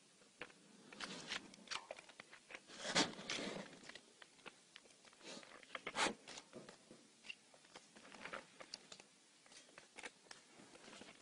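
Black bear's claws scraping and clicking on a metal tree stand and tree bark as it climbs down, with rustling. Quiet and irregular, with louder scrapes about 3 and 6 seconds in.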